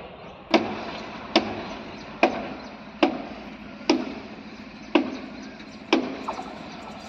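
A steady series of sharp, heavy knocks, about one a second, each dying away quickly; a fainter knock follows close after the seventh.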